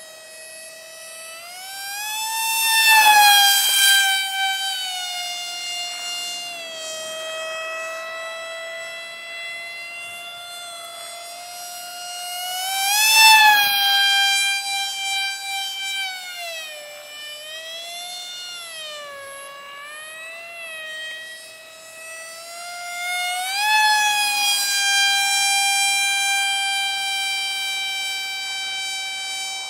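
Brushless RC motor (2205, 2300kv) spinning a 5045 propeller on a cardboard RC F-22 in flight: a high whine that rises and falls in pitch with throttle. It swells much louder three times as the plane passes close.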